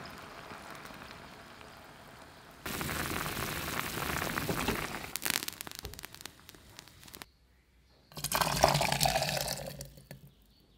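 Broth with diced vegetables simmering and bubbling in a pot, then a louder steady hiss with crackles that thins out. After a brief pause, the hot broth and vegetables are poured into a rice cooker's inner pot, splashing for about two seconds.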